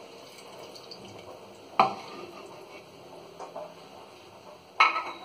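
A utensil knocking twice against an aluminium pressure cooker, two sharp knocks about three seconds apart with a short metallic ring, over a faint steady hiss.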